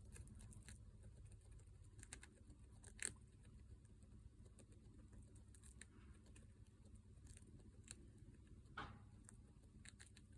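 A degu's tiny sneezes, set off by dandelion fluff: faint short puffs scattered through, the sharpest about three seconds in and a slightly longer one near the end.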